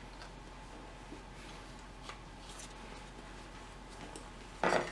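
Faint clicks and handling noise of hands and a hand tool working on the engine, then one short, louder burst of noise near the end.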